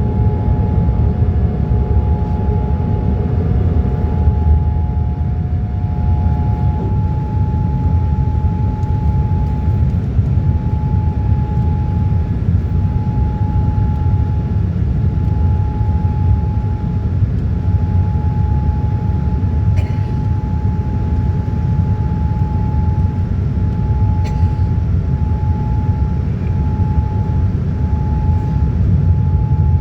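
Boeing 787-9 engines and airflow under takeoff power, heard inside the cabin: a loud, steady low rumble with a steady high-pitched tone on top. A second, lower tone drops out about seven seconds in, and there are two faint clicks later.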